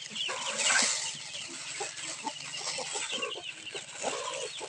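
Chickens clucking and chicks peeping steadily while they are being fed, with dry rice grains poured into a plastic basin.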